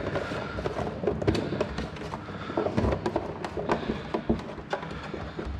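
Cubes of Emmentaler cheese tumbling and pattering out of a white plastic tub onto minced sausage meat, with irregular light taps and knocks as hands scrape and shake the plastic tub, over a steady low hum.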